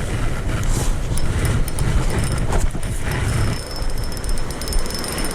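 Wind buffeting the microphone over rushing creek water, a dense low rumbling noise. A run of quick, thin high ticks comes in over it in the second half.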